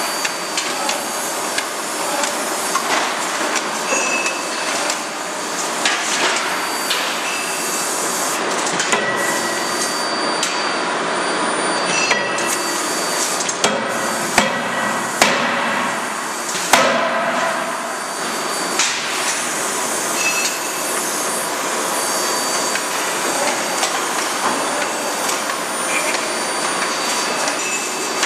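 CNC hydraulic forging hammer striking repeatedly, a dense, continuous clatter of impacts with a few sharper, louder blows around the middle.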